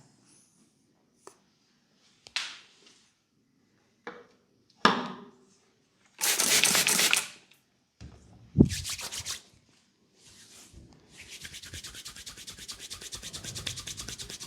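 Hands rubbing and tapping on a head during a head massage: a few sharp taps, a loud rub lasting about a second, then fast rhythmic rubbing from about two-thirds of the way through.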